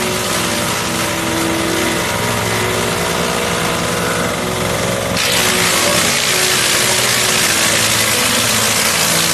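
Engine of a garden branch shredder-chipper running steadily. About halfway through, a loud rushing hiss suddenly joins it and holds.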